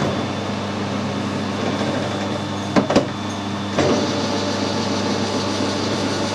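Metal lathe running with a steady hum. Two sharp clicks come about three seconds in, and the sound grows louder and rougher just before four seconds.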